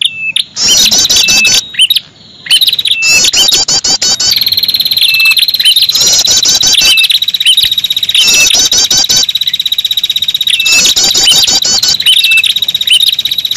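Looped lure-call recording of the red-headed prenjak, a tailorbird, in a loud, noisy calling bout. Every few seconds comes a burst of rapid high chirp phrases, with short hooked whistles in between. Through the middle runs a long, fast buzzing trill held at one pitch.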